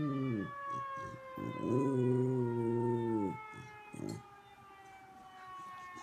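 Beagle howling along with a tornado siren: one howl falls away at the start, and a second long howl comes about one and a half seconds in and ends about halfway through. Under the howls the siren's tone slowly falls in pitch the whole time.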